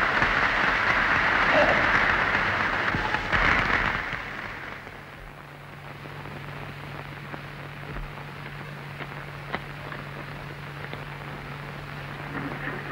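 Crowd applause that dies away about four seconds in, leaving a low steady hum with a few faint clicks.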